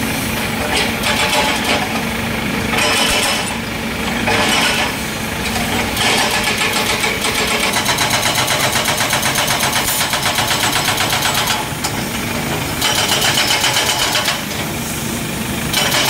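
Liugong hydraulic excavator's diesel engine running as it works a demolition rubble pile, with short bursts of scraping and crunching debris. From about six seconds in until nearly twelve, a fast, even clatter runs over the engine sound.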